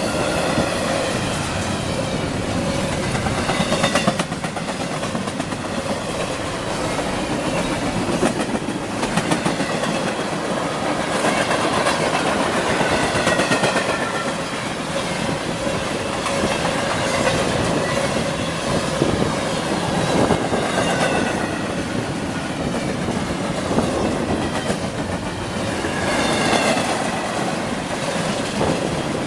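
Freight train of CSX intermodal well cars rolling past, its wheels clattering steadily over the rail joints. Wavering high wheel squeals rise and fade several times along the way.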